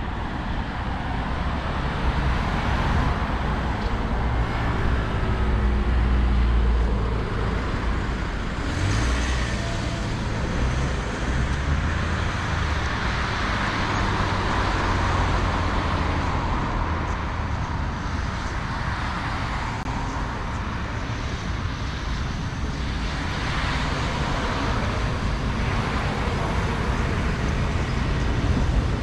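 City street traffic: vehicles passing with a steady rumble of engines and tyre noise.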